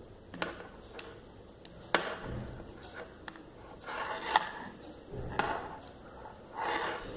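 Handling noise from a plastic USB converter cable and plug being moved about by hand: a few sharp clicks and knocks among irregular bursts of rustling.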